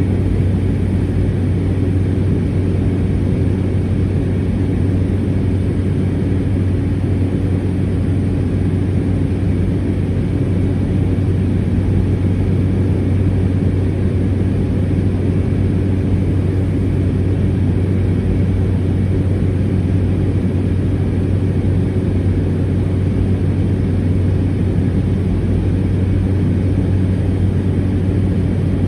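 Cessna 208 Caravan's Pratt & Whitney PT6A turboprop engine and propeller running with a loud, steady drone and low hum.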